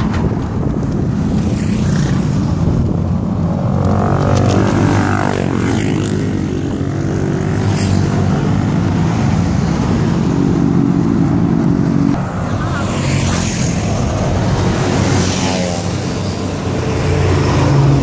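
Close, heavy road traffic: engines running and tyres on the road, with vehicles passing one after another. About four seconds in, a passing vehicle's engine note drops in pitch as it goes by.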